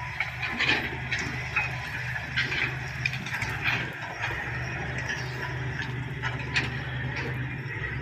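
SD16 crawler bulldozer and a tracked excavator running steadily while they clear brush. Irregular short high squeaks and clatters sound over the engines, typical of steel crawler tracks and blades working through brush.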